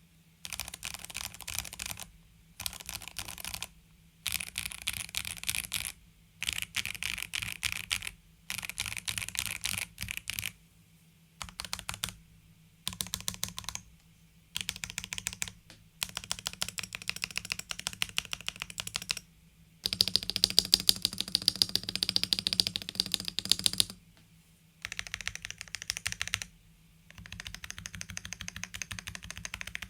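Typing on a stock Dukharo VN66 mechanical keyboard, which has poron foam under and above the PCB and factory-lubed plate-mount stabilizers. The keys clack in rapid bursts with short pauses between them, and the longest, loudest run comes about two-thirds of the way through.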